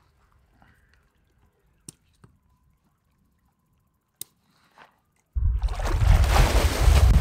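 Almost silent at first apart from a few faint clicks; about five seconds in, loud splashing starts abruptly as a person and a dog wade into a lake, with a heavy low rumble under it.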